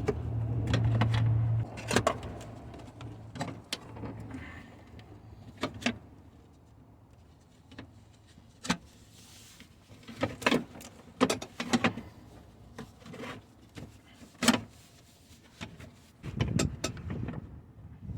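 Scattered clicks, taps and knocks of plastic trim and wiring being handled and fitted, with a low steady hum during the first second and a half.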